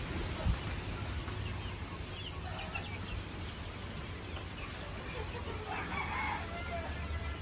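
Gamefowl calling: a few short high peeps a couple of seconds in and a rooster crowing about six seconds in, over a low steady rumble.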